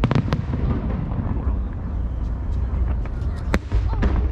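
Aerial firework shells bursting in a display: two sharp bangs in quick succession right at the start and another about three and a half seconds in, over a steady low rumble.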